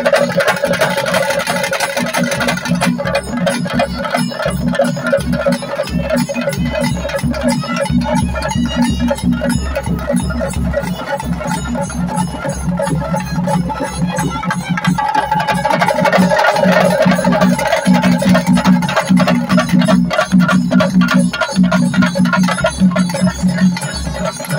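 Temple drum ensemble of waist-hung drums beaten in a fast, steady rhythm, with held melody notes sounding over the drumming and growing stronger in the second half.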